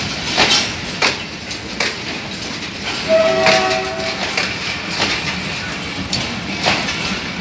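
Empty Pakistan Railways passenger coaches rolling past, their wheels clacking over the rail joints. About three seconds in, a horn sounds for about a second on a chord of several notes.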